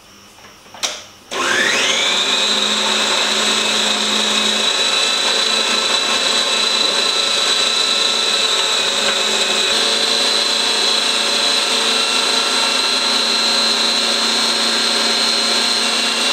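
Electric blender switched on with a click, its motor whine rising quickly to full speed, then running steadily as it purées vegetables with a little water.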